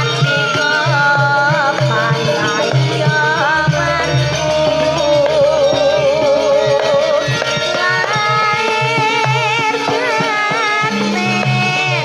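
A sinden, a female Javanese singer, sings a langgam Jawa melody with wavering, heavily ornamented held notes over campursari accompaniment with steady hand-drum beats.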